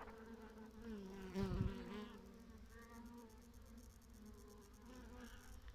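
Honeybees buzzing in flight at the entrance of a small nucleus hive. The buzz dips and rises in pitch and is loudest about a second and a half in, as a bee passes close.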